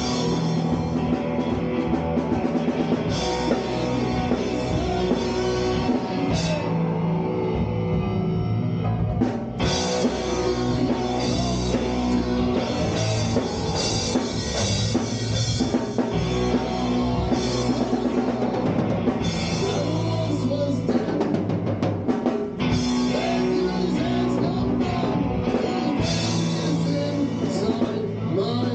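Power trio of electric guitar, bass guitar and drum kit playing a loud psychedelic rock jam.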